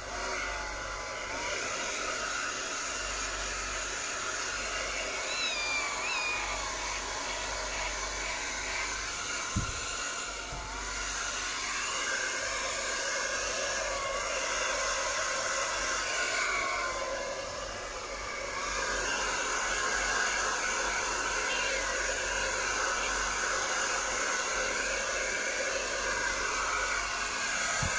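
Handheld hair dryer blowing steadily while drying a wet kitten's fur, its level dipping briefly a couple of times as it is moved about.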